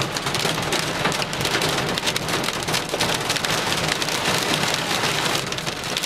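Hail and wind-driven rain pelting the truck's roof and windshield, heard from inside the cab as a dense, continuous patter of small impacts.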